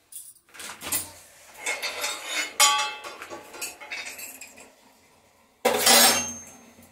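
Steel kitchen utensils clattering and clinking as they are handled on a gas stovetop. One piece rings briefly about two and a half seconds in, and there is a loud metal clatter near six seconds, as a steel ladle comes to rest on the stove.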